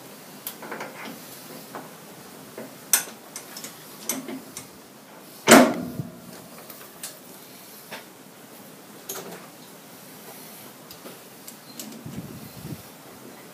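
Scattered metal clicks and clunks of a steel bearing hub being fitted into a lathe tailstock, with one loud knock about five and a half seconds in.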